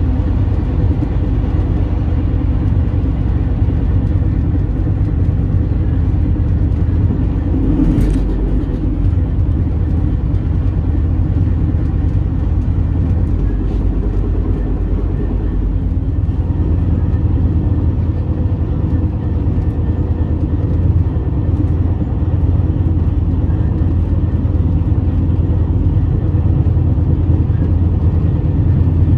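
Steady low vehicle rumble, with a single knock about eight seconds in.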